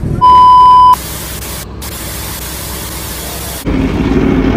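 An edited transition sound effect: a loud, steady electronic beep lasting under a second, then TV-style static hiss for about two and a half seconds. Near the end it cuts abruptly to low vehicle noise.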